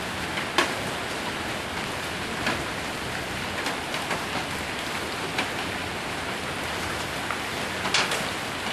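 Steady heavy rain drumming on a roof, with scattered sharp hailstone strikes cracking through it, a few at a time, the densest cluster near the end.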